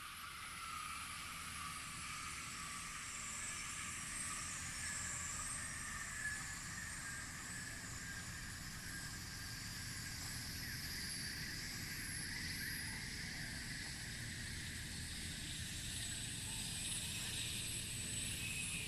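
Steady jungle ambience: a dense chorus of high chirping calls, like insects and birds, layered over a low rumble.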